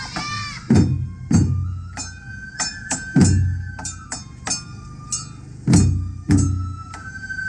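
Japanese festival-float hayashi music: heavy taiko drum strokes at uneven spacing, a high bamboo flute holding long notes that step between pitches, and quick sharp clicks of small percussion.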